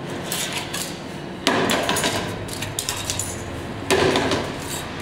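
Knocks and clatter of mobile-phone parts being handled and put down on a workbench during hand dismantling, with two louder knocks, one about a second and a half in and one near four seconds in.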